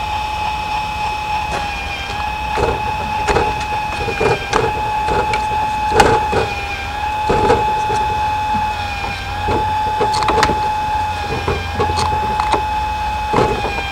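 Small 12 V geared DC motor running steadily with a constant whine, winding the cord over a pulley to lift the sliding chicken coop door. Irregular short knocks and clicks sound over it.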